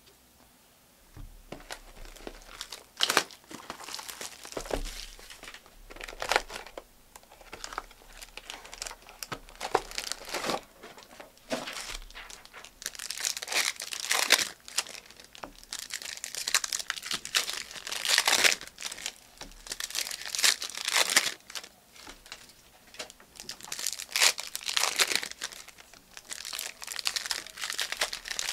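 Plastic trading-card pack wrappers being torn open and crinkled by hand, in many irregular rustles and rips starting about a second in.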